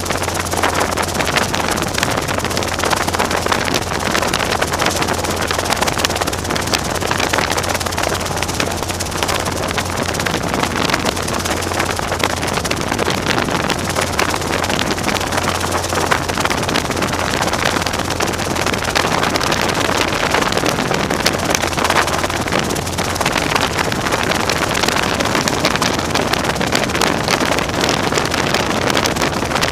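Robinson R22 helicopter's piston engine and rotors running steadily in flight, a constant low drone under loud wind rush on the microphone.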